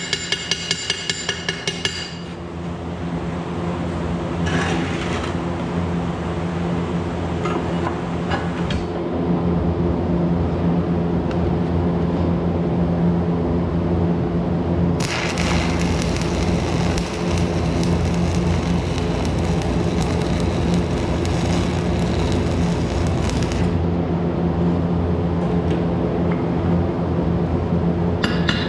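Arc welding on metal: a steady welder hum with a crackling, hissing arc that is loudest in a long burst through the middle. Rapid metallic tapping, like a hammer chipping slag or peening the weld, runs for about the first two seconds and starts again near the end.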